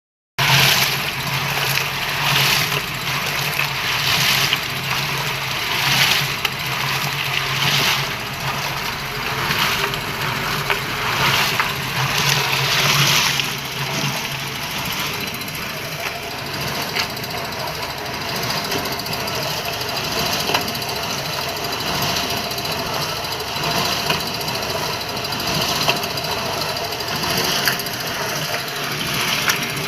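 Small 24-volt electric concrete mixer running, its motor humming steadily while the drum turns, with a regular swell in the noise about every two seconds. About halfway through, the sound shifts to a steadier, higher-pitched running tone.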